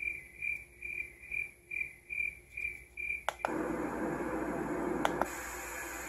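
Baby monitor's built-in soothing-sound tracks playing through its small speaker. It starts with a nature track of short chirps, about two a second. A click about three seconds in switches it to a steady brown-noise hiss, and another click near the end changes that to a brighter white-noise hiss.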